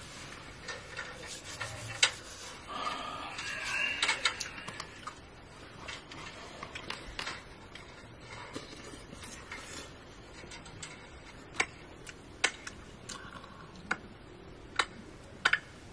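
Scattered light clicks and taps of cookware and utensils being handled at a small camping stove, several in quick succession in the second half, over a steady low hiss.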